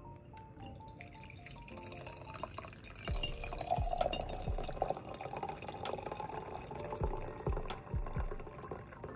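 Coffee poured from a pot into a ceramic mug, a steady liquid pour that begins about three seconds in.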